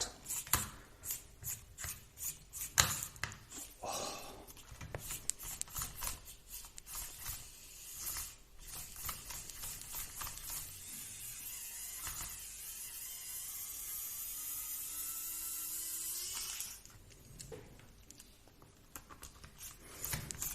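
Small electric precision screwdriver (a Wow Stick) running in a steady whir for about eight seconds, driving the small screws of an RC car's front bumper, with sharp clicks of tool and plastic parts being handled before and after it.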